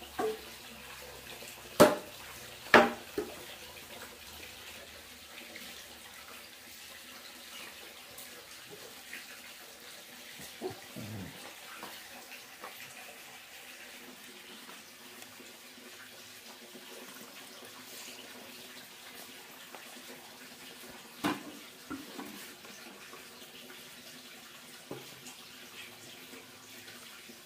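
Steady running water, with two sharp knocks about two and three seconds in and a few fainter knocks later.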